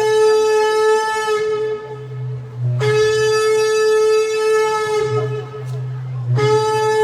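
Shofar blown in long, steady single-pitch blasts, rich in overtones, as a call to repentance. One blast carries on into the first second or so, a second is held from about three to five seconds in, and a third begins near the end.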